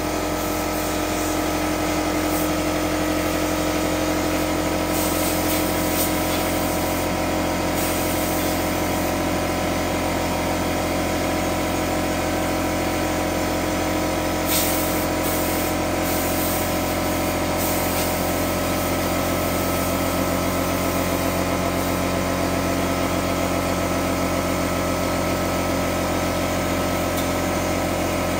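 Air compressor running steadily, with a few short hisses of compressed air from a blow gun blowing dust out of holes drilled in concrete for epoxy-set rebar.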